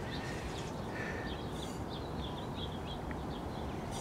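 Small birds chirping in short, scattered calls over a low, steady background rumble.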